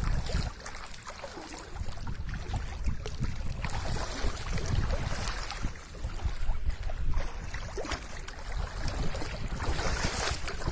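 Wind buffeting the microphone, a fluctuating low rumble, over a steady rushing noise.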